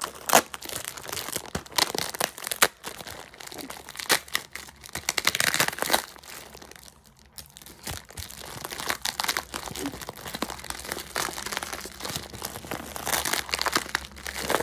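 Plastic mailer bag crinkling and crackling as hands pull at it and peel the tape off to open it, with a short lull about seven seconds in.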